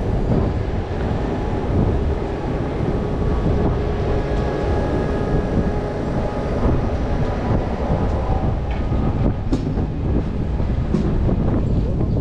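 Wind buffeting the microphone, a loud steady low rumble, with a faint steady hum above it and a few light clicks near the end.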